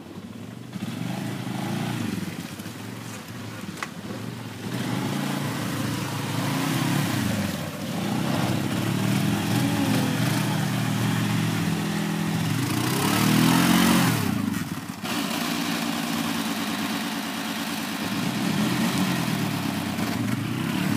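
ATV engines running and revving as quads ride around a dirt clearing, their pitch rising and falling with the throttle. The loudest moment is about two-thirds of the way through, when the engine note swells up and falls away as a quad passes close.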